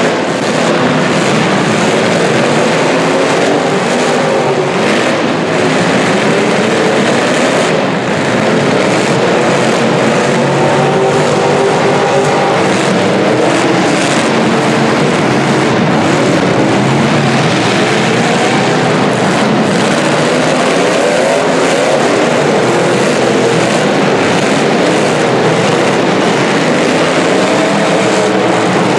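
Several demolition derby cars' engines running and revving at once, their pitches rising and falling over each other, with scattered sharp knocks from the cars colliding.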